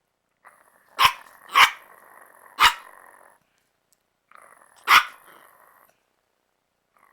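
Yorkshire terrier play-growling and barking: four sharp barks, three close together in the first three seconds and one more about five seconds in, over rough growling between them.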